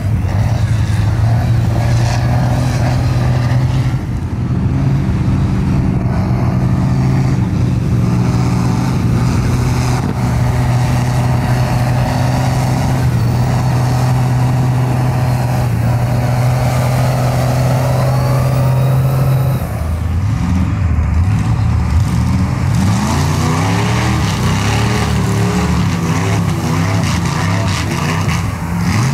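Mega truck engine working through deep mud: it holds a steady drone for most of the time. About two-thirds of the way in, it starts revving up and down repeatedly.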